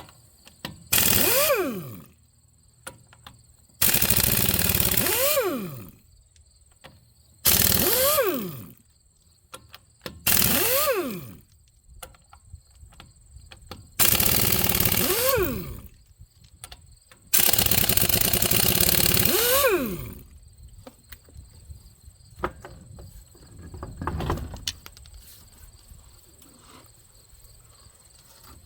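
A handheld power tool's motor run in about six bursts of one to two and a half seconds, each ending with a falling whine as the motor spins down after the trigger is released.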